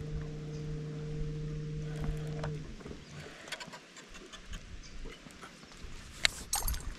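Steady hum of a boat's electric trolling motor that cuts off about two and a half seconds in. A few sharp clicks follow near the end.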